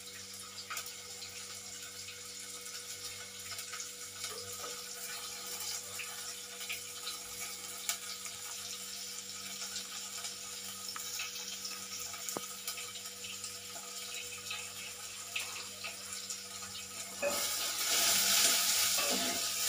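Chopped onions frying in hot oil with mustard seeds and garlic, sizzling steadily with small crackles; about seventeen seconds in the sizzle grows louder as they are stirred.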